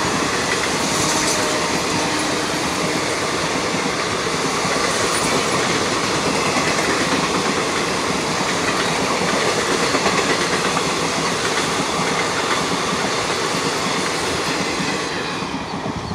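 Indian Railways express coaches rolling past at speed: a steady rushing rumble and clatter of steel wheels on the rails, dropping away near the end as the last coach pulls off.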